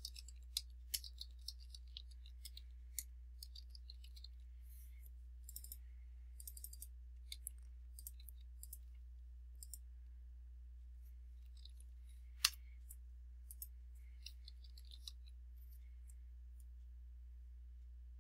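Computer keyboard keys tapped in quick, irregular clicks, thinning to occasional mouse clicks, with one sharper click about twelve seconds in. A steady low hum runs underneath.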